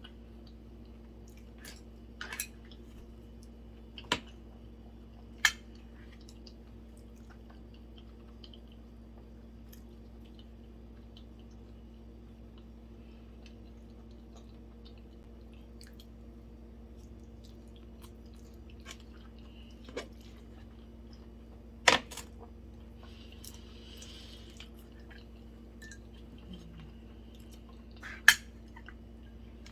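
Close-miked eating of sushi: soft chewing with a few sharp clicks from utensils or dishes, the loudest about two-thirds of the way through and near the end, over a steady low hum.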